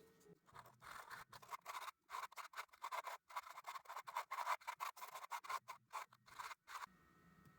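Sandpaper rubbed back and forth over the point of a worn copper soldering-iron tip in quick, short rasping strokes, cleaning it down to bare metal. The strokes start about half a second in and stop shortly before the end.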